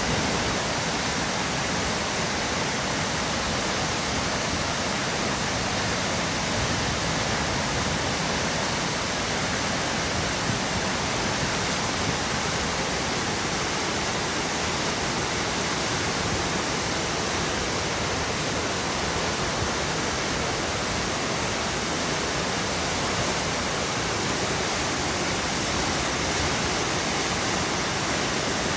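Kapuzbaşı waterfall's water falling in a steady, even rush of noise that does not change.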